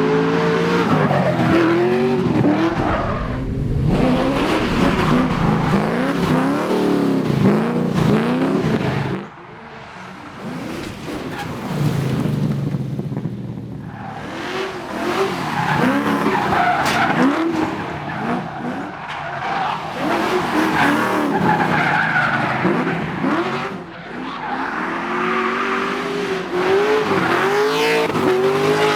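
5.7-litre LS1 V8 in a Nissan R32 Skyline being driven hard, its revs rising and falling over and over as the throttle is worked, with tyres squealing and skidding through a drift. The engine note drops off briefly about nine seconds in, then picks up again.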